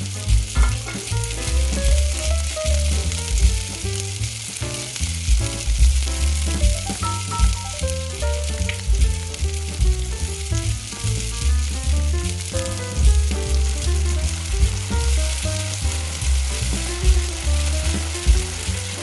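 Diced onion, bell pepper and carrot sizzling in hot oil in a nonstick frying pan, stirred with a wooden spatula, with a steady frying hiss. Background music with a bass line plays underneath.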